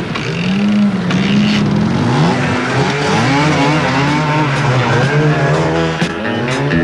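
Enduro motorcycle engine revving as the bike rides off, its pitch rising and falling again and again.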